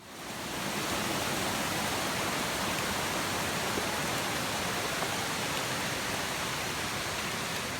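Steady rush of falling water, a waterfall or fast stream, fading in over about half a second and then holding even.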